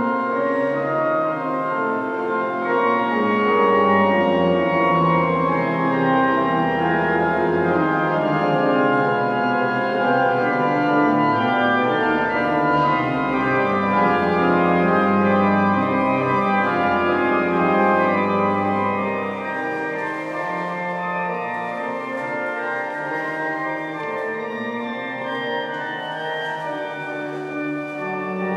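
Church organ playing full, sustained chords, becoming somewhat softer about two-thirds of the way in.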